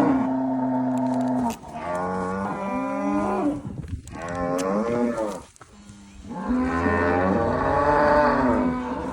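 Cattle mooing: a string of long, drawn-out moos, four calls one after another with short gaps between them.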